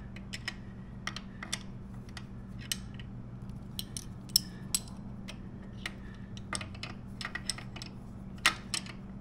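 Irregular light metallic clicks and taps of wrenches working the chain adjuster bolt and lock nut at a motorcycle's rear axle, with a steady low hum underneath.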